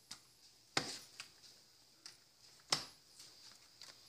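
Wooden spoon knocking and scraping against a pan while tossing pork chops and vegetables in their juices: a scatter of short clacks, the two sharpest about a second in and near three seconds in.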